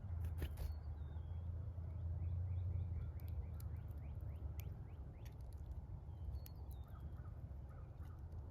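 Small birds chirping at a feeder: many short, high, quick chirps and a few sharp clicks, over a steady low rumble that is strongest in the first few seconds.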